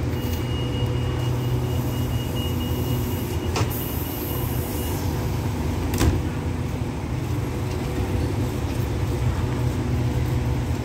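Steady low diesel hum of a stationary passenger train idling at the platform. Two sharp knocks come about three and a half and six seconds in, the second the loudest.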